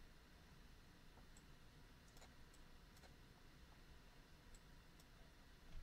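Near silence with a few faint, scattered computer clicks as the pointer is clicked to zoom the graph.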